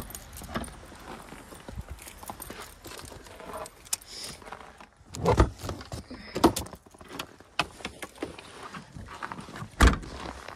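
Gear being handled in the open rear hatch of an SUV: rustling and small clicks, with several sharp knocks as a pair of wooden-framed snowshoes is taken out. The loudest knocks come about halfway through and again near the end.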